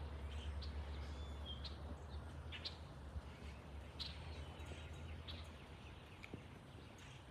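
Faint, steady low rumble of a Boeing 737 MAX jet airliner at cruising altitude, fading out about five and a half seconds in. Short, high bird chirps are scattered throughout.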